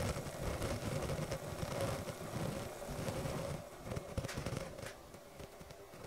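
Water heating to a boil around a lit 12-volt bulb submerged in a glass: a dense, rapid crackle of forming and collapsing bubbles, louder for the first three and a half seconds, then quieter with scattered pops.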